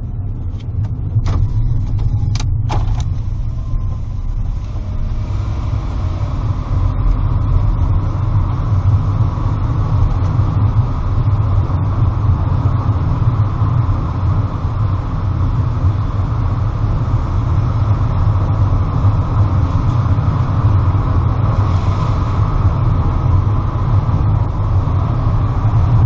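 Car running at low speed heard from inside the cabin, a steady low rumble of engine and tyres that grows a little louder about five seconds in, as the car enters a narrow road tunnel. A few sharp clicks near the start.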